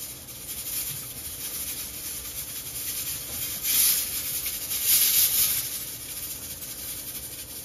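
A black nylon slotted spoon stirring chicken in a large aluminium pot, scraping against the pot's sides and bottom, over a steady hiss. Two louder scrapes come about four and five seconds in.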